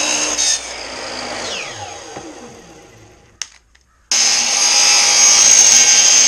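Bosch miter saw cutting through a coconut's dense fibrous husk, then switched off and winding down with a falling whine. After a short click and a brief pause, the saw starts again about four seconds in and cuts loudly through another wedge.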